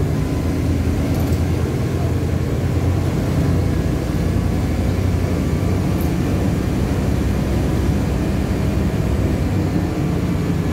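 Cabin noise inside a LiAZ-5293.60 city bus: the diesel engine drones steadily under a constant rumble. There are two faint ticks, about a second in and near the middle.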